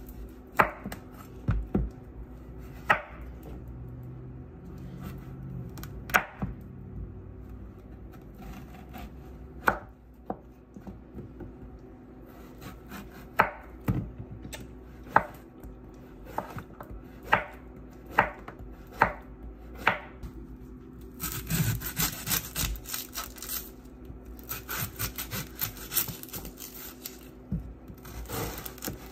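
Chef's knife chopping zucchini on a wooden cutting board: sharp knocks of the blade on the board, about one every second or two. Near the end comes a denser stretch of scraping and crackling as the knife cuts into an onion.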